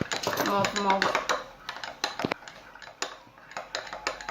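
A spoon clicking and tapping against its container in irregular strokes while glue and paint are stirred together for slime.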